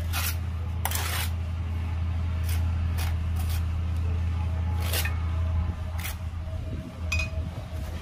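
A steel trowel scraping and clicking against mortar and a glass block: a handful of short scrapes and taps. Under them runs a steady low hum that drops away about two-thirds of the way through.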